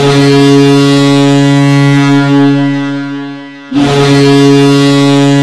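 Ice hockey goal horn sounding two long, low, steady blasts. The second starts a little under four seconds in, right as the first fades. The horn signals that the home team has scored.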